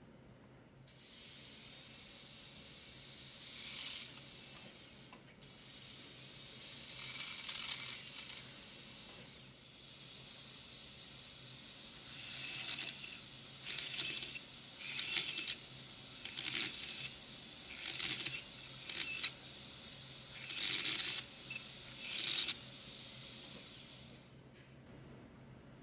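Dental surgical handpiece spinning a Lindemann bone-cutting bur: a steady high hiss, then from about halfway a series of short, louder bursts that stop and start.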